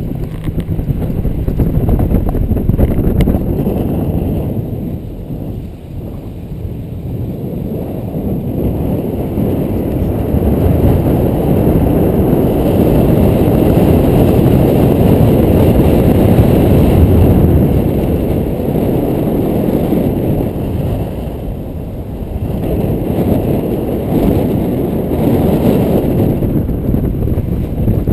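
Wind buffeting the microphone at an open car window while driving slowly, over the car's road noise; the rumble swells and dips, loudest in the middle stretch.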